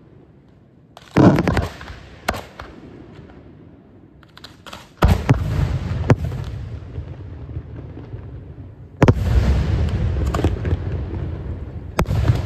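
Fireworks display: sharp bangs of bursting shells, each followed by a lingering rumble, coming singly at first and then in denser volleys about five and nine seconds in.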